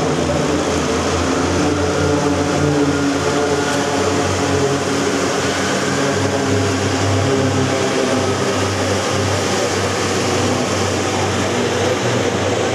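Propeller engines of four Extra 300 aerobatic aircraft of The Blades display team, a steady drone with an even stack of engine tones as they fly in close formation.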